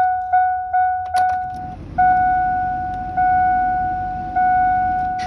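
Dashboard warning chime of a Chevrolet C5500 bus sounding as the key is turned: short beeps about three a second, then longer held tones. Just over a second in there is a click and the engine starts, idling low under the chime.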